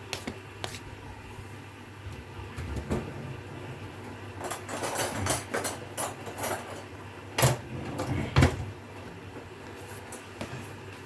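Hotpoint Core inverter-motor washing machine running, a low steady hum with irregular knocks and clatter, and two louder thuds about seven and eight seconds in.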